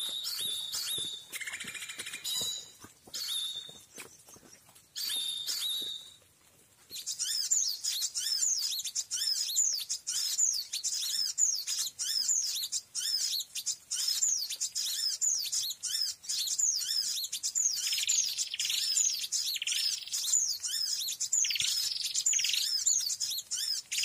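High, thin konin (kolibri ninja sunbird) calls from the lure recording played on an MP3 player. Broken chirps for the first several seconds, then a fast, continuous high twittering song from about seven seconds on.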